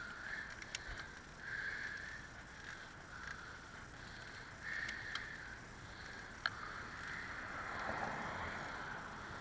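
Bicycle being ridden on a tarmac path: steady tyre and drivetrain noise with three short sharp clicks from the bike. A motor vehicle passes on the road alongside, loudest about eight seconds in.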